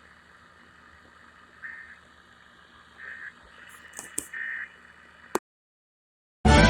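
Emergency Alert System end-of-message code: three short data-tone bursts, each a fraction of a second and about a second apart, over a faint steady hiss, marking the end of the test alert. A few clicks follow, then a second of dead silence, and loud music cuts in just before the end.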